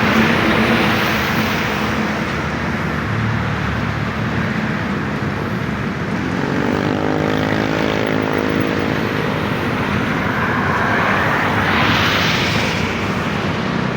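Heavy road traffic at a bus terminal exit, with buses and other vehicles passing. About six seconds in, a vehicle engine's hum rises in pitch, holds for a few seconds, then fades as the vehicle pulls away.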